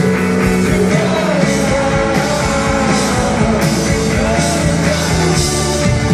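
Indie rock band playing a song live, a lead singer's voice over guitars, bass and drums.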